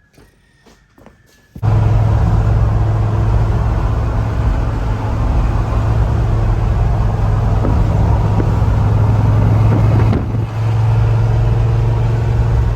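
1966 Ford F100's engine and exhaust running steadily with a strong low drone, its ignition timing freshly set. It starts abruptly about a second and a half in, dips briefly about ten seconds in, then carries on.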